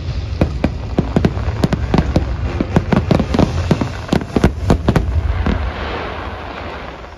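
Rapid barrage of aerial fireworks: several sharp bangs a second over a low rumble, dying down about five seconds in to a fading crackle.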